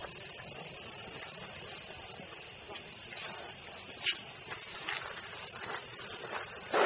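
Chorus of cicadas, one steady high-pitched drone that does not change. In the second half, footsteps fall about once a second underneath it.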